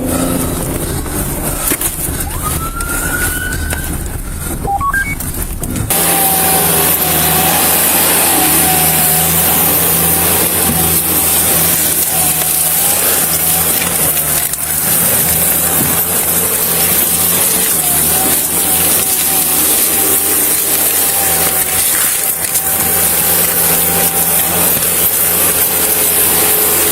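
Vehicle running with steady engine drone and road and wind hiss. About six seconds in the sound changes abruptly to a louder steady hiss with a steady hum.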